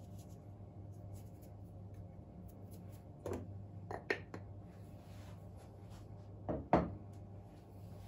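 A few short knocks and clatters of a kitchen canister being handled, tipped over the bowl and set down on the counter. The loudest pair comes near the end, over a steady low hum.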